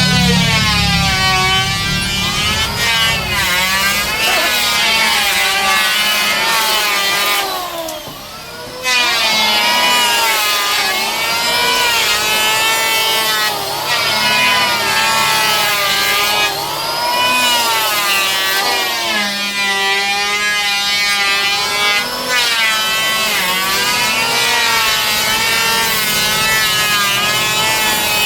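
Electric woodworking power tool cutting wood, its motor pitch repeatedly sagging and recovering as it works through the stock, with a brief let-up about eight seconds in.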